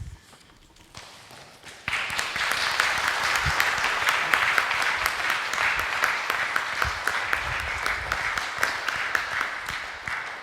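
Congregation applauding. The clapping starts faintly about a second in, becomes full and steady about two seconds in, and eases off near the end.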